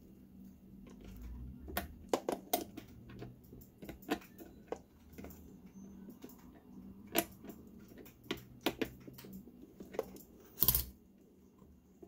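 Metal pliers clicking and clinking against a hose clamp and the plastic water tubing of a coffee maker as the clamp is worked into place. Scattered sharp clicks, the loudest near the end.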